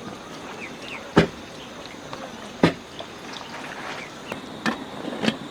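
Four sharp knocks spaced one to two seconds apart, over a steady background with a few short high chirps.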